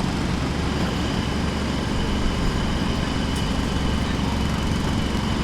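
Distant pneumatic jackhammer drilling into the ground, a steady, rapid hammering din.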